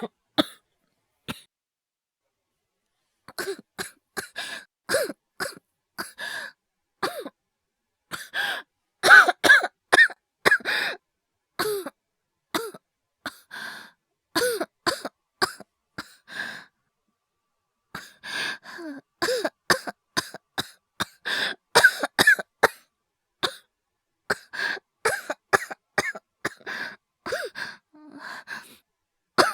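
A voice actor's performed coughing: fits of short, harsh coughs in quick runs with brief pauses between them, some ending in throat clearing. The coughing is acted, not a real illness. There is a pause of about three seconds near the start.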